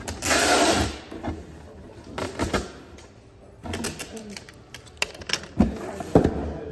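A cardboard mailing box being folded and taped by hand: a rasping scrape of about a second at the start, then rustling, clicks and sharp knocks of cardboard and the tape dispenser against the box.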